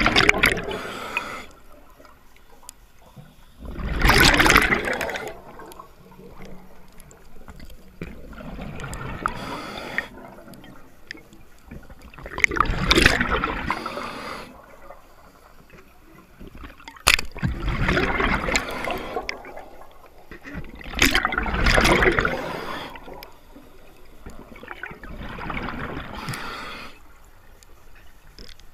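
A scuba diver breathing through a regulator underwater, about one breath every four seconds, each breath a loud rush of hiss and exhaled bubbles with quieter water sound between.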